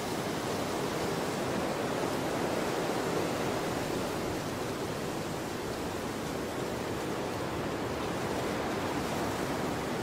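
Steady rushing roar of wind and sea, an even noise with no separate crashes, swelling slightly about two to three seconds in and easing a little around six seconds.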